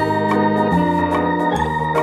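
Background music led by an electronic organ-like keyboard, with chords and a bass line changing about every half second over a light steady beat.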